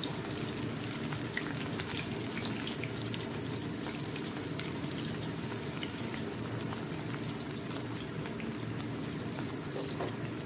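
Drumstick-flower pakora batter deep-frying in hot refined vegetable oil in a kadai: a steady sizzle with fine crackling.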